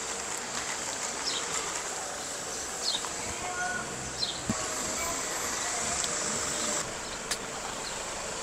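Steady background noise of an open-air roadside eatery, with a short high falling chirp repeating about every one and a half seconds and a thin high steady whine.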